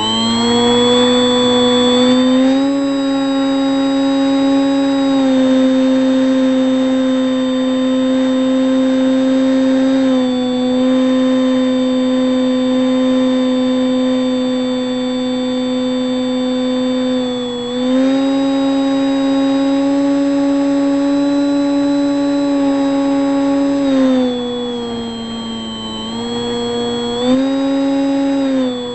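Electric motor and propeller of a HobbyKing Bix3 RC plane, heard from a camera mounted under its nose: a steady whine that rises in pitch over the first couple of seconds, then holds. It drops and rises again a few times as the throttle changes.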